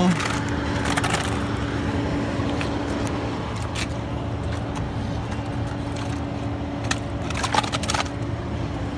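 Semi-truck tractor's diesel engine idling steadily, with a few short scrapes and knocks, the loudest cluster near the end.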